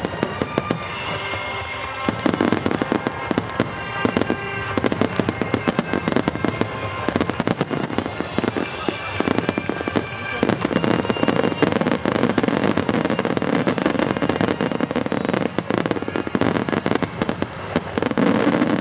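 Aerial fireworks bursting in rapid succession with dense crackling, over music that accompanies the display.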